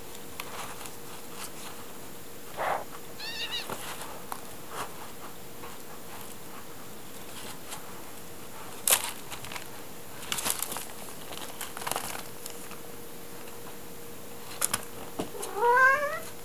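Kittens scuffling in a wooden tray of cat litter on newspaper: scattered scratching, rustling and paper crinkling. There is a short high mew about three seconds in, and a louder cat call rising in pitch near the end.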